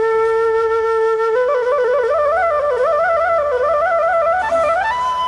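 Flute melody: a long held note, then an ornamented line winding up and down in small steps, climbing to a higher held note near the end.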